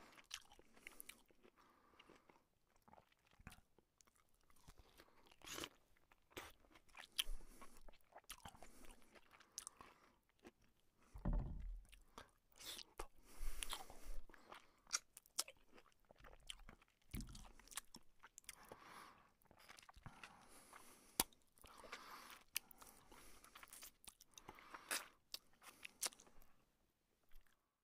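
A man chewing and biting mouthfuls of luchi, the puffed deep-fried flatbread, with chicken curry, with irregular sharp clicks and short crunchy bursts from his mouth.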